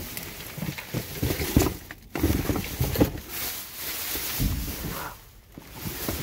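Plastic bags crinkling and cardboard boxes shifting and knocking as someone rummages through bagged produce in a dumpster, in irregular rustles and bumps.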